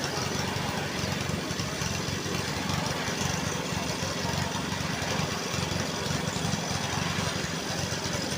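An engine of road-building machinery running steadily at a constant pace.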